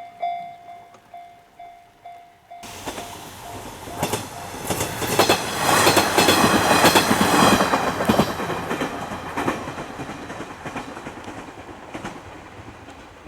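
Japanese level-crossing warning bell ringing about twice a second and fading, broken off abruptly about two and a half seconds in by a train passing close by, its wheels clattering over the rail joints; the train is loudest around the middle and fades away near the end.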